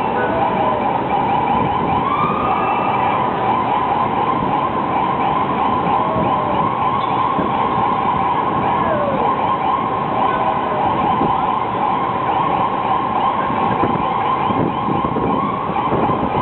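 Ambulance siren sounding continuously at a nearly constant high pitch, over a low rumble of road noise.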